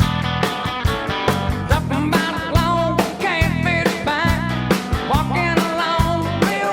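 Rock music with singing, electric guitar and a steady driving drum beat.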